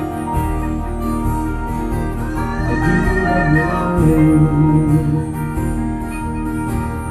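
A band playing an instrumental passage of a song, with guitar to the fore over held chords.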